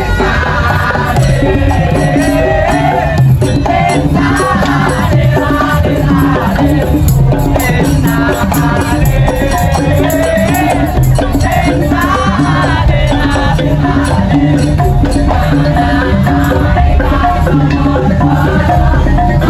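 Madurese daul dugdug ensemble playing: drums and percussion keep a steady beat under a melody that bends up and down.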